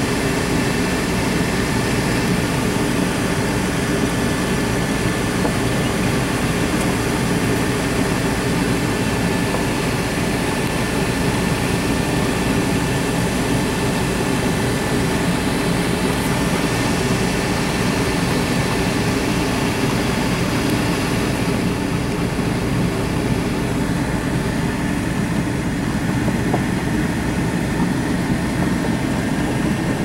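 Truck engine idling steadily, a low hum heard from inside the cab.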